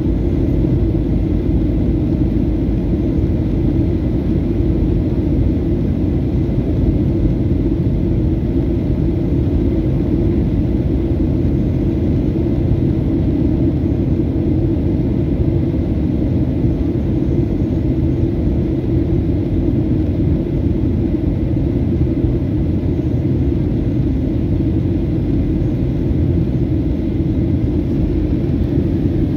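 Steady low rumble of engine and airflow noise inside the cabin of a Southwest Airlines Boeing 737 in flight.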